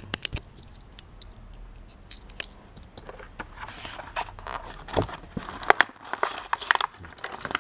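Plastic blister pack of a Hot Wheels car being torn open from its cardboard backing card: a few light clicks, then crinkling and tearing with sharp snaps, mostly in the second half.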